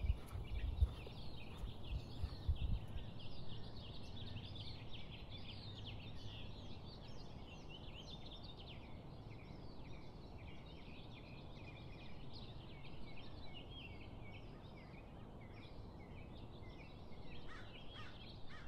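Many small birds chirping at once, a dense run of quick overlapping chirps. There are a few low thumps in the first few seconds.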